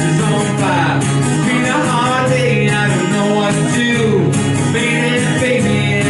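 A man sings into a microphone while strumming an acoustic guitar.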